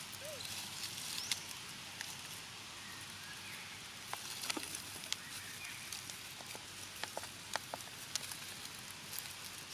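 Steady hiss of outdoor ambience with scattered sharp clicks and taps, most of them in the second half, and a couple of faint short chirps.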